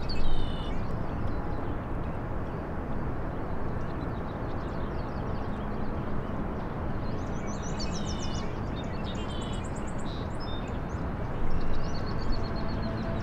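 Small birds chirping and trilling, in short repeated phrases, over a steady outdoor background hiss. Near the end a steady music drone begins to come in.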